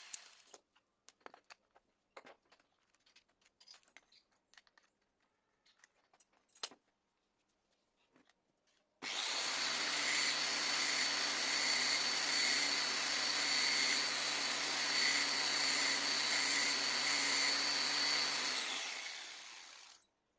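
Electric die grinder starting abruptly about halfway through and running steadily with a high whine, likely grinding down a polyurethane wheel, then winding down near the end. Before it, a few light clicks and knocks of parts being handled.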